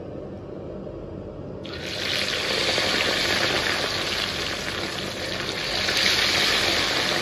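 Hot oil in a wok with a low, steady bubbling, then about a second and a half in a piece of hairtail goes in and the oil breaks into a loud, steady sizzle of deep-frying.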